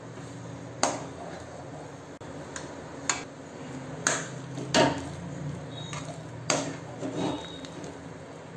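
Steel spatula knocking and scraping against a metal kadai while stirring thick rice-flour dough for kozhukattai as it cooks in milk and water. Several sharp clinks come irregularly, about a second apart, over a steady low hum.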